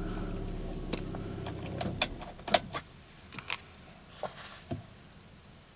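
Volvo car engine idling, then switched off about two seconds in so that only the ignition stays on; the hum dies away. Several sharp clicks follow.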